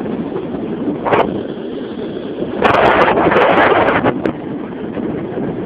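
Storm wind blowing hard across the microphone, with a stronger surge of rushing noise about two and a half seconds in that lasts a second and a half. A few short knocks against the microphone are mixed in.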